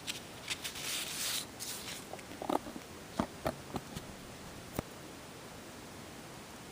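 Soft rustling for about a second and a half, then several light clicks and taps a second or so apart as small objects are handled.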